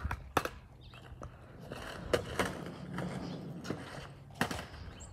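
Skateboard wheels rolling over pavement with a low rumble, and a few sharp clacks, from about 2 s in and again near the end.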